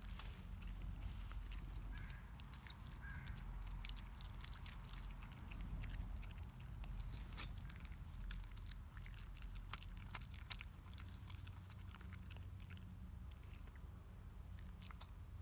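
Border terrier eating beans: chewing, with a run of irregular crunchy clicks.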